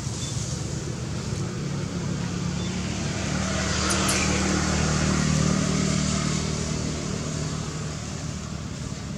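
A motor vehicle passing: a low, steady engine hum that grows louder to a peak about halfway through, then fades.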